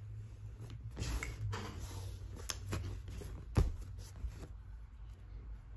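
Hands working sticky blue butter slime, giving irregular small clicks and squelchy pops, with one sharper snap about three and a half seconds in.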